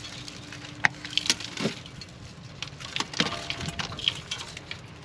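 Scattered sharp clicks and short knocks of a gloved hand working the plastic cover and brake pad wear sensor connector inside a car's wheel arch, with a few louder clicks around the first and third seconds.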